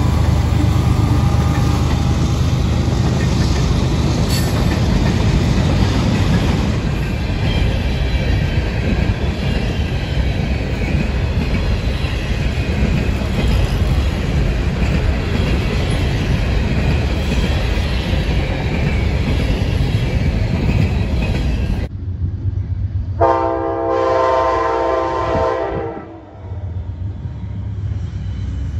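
CSX freight train rolling past close by: its mid-train diesel locomotive, then a steady rumble and clatter of freight cars on the rails. About 22 seconds in, this gives way to an approaching Amtrak diesel passenger locomotive sounding its air horn: one chord of about two and a half seconds, then a second blast starting near the end.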